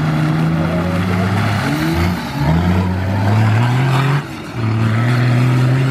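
Off-road 4x4's engine revving hard as it drives through deep mud, the pitch climbing and falling, with two brief lifts off the throttle about two and four seconds in.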